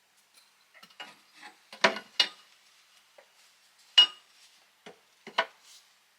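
Metal clinks and clicks of a wrench working on metal water-pipe fittings, in irregular knocks. The loudest are about two seconds in, twice close together, then one around four seconds in with a brief ring, and another near the end.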